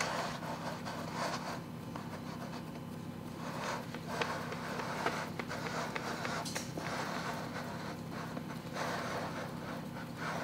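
Faint handling sounds of hands pressing pastry dough into a metal baking pan: soft rubbing with a few light taps, over a steady low hum.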